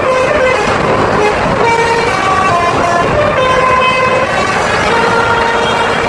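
Bus telolet horn, a Basuri multi-tone air horn, playing a melody of short held notes that step up and down in pitch, over the low rumble of the coach's engine.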